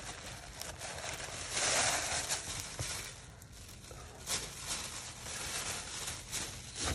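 Clear plastic packaging sleeve crinkling and rustling as it is handled, loudest about two seconds in, with a few light clicks.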